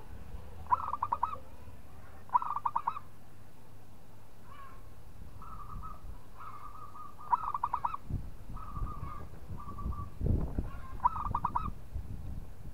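Zebra dove (perkutut) cooing: four short bursts of rapid staccato coos, with several single held coos at the same pitch in between.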